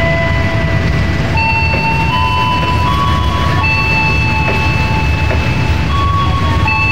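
Passenger train coaches rolling past on the track: a steady, loud low rumble. Over it sit several high, held tones that change pitch every second or so.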